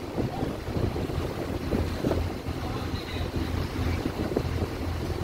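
Vehicle ferry's engines running with a steady low drone, heard inside the passenger cabin, with wind buffeting the microphone.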